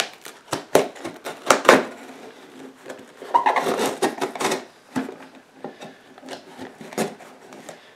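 A knife cutting and scraping through the tape and cardboard of a shipping box, with irregular sharp clicks and a longer rasping stretch around the middle.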